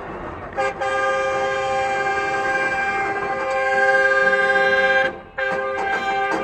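A vehicle horn blown long and steady, a multi-tone blare held for about four and a half seconds, cut off briefly about five seconds in, then sounding again.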